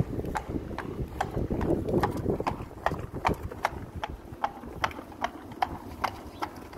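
Horse's hooves trotting on a hard yard while the horse is trotted up in hand: a steady, regular clip-clop of about three hoofbeats a second.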